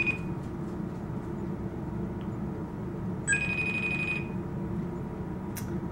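A smartphone sounds a short electronic tone, about a second long, a little past the middle, over a steady low background hum; a single sharp click comes near the end.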